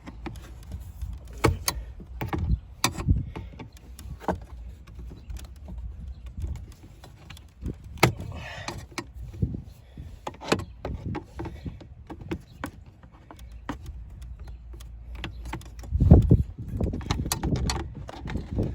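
Irregular clicks, taps and knocks of a pry tool working at plastic dashboard trim in a car interior, trying to pop a piece out, with a louder thump near the end.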